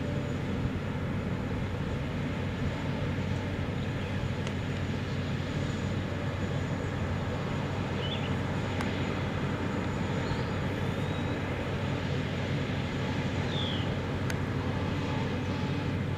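Drilling rig and heavy equipment on a Marcellus shale gas well pad running: a steady low roar with a deep engine hum. A few short high chirps are heard over it.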